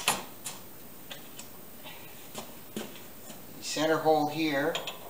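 A few sharp metallic clicks and knocks from parts of a metal lathe being handled, the loudest at the very start. A man's voice speaks briefly about four seconds in.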